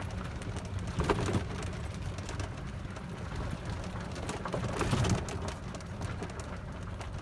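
Small open vehicle driving along a gravel path: a steady low rumble with scattered crackling clicks from the tyres on the gravel.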